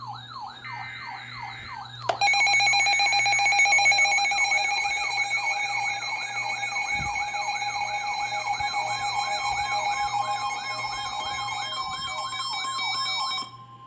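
An electronic siren wailing rapidly up and down, about three sweeps a second. About two seconds in, a loud steady tone joins it, and both cut off suddenly just before the end.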